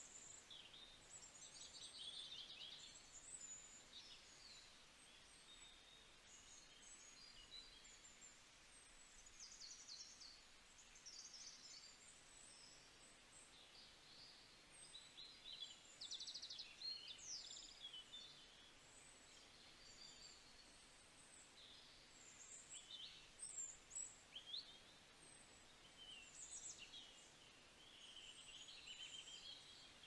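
Faint garden birdsong: many small birds chirping and trilling in short, high-pitched calls that overlap throughout, over a low background hiss.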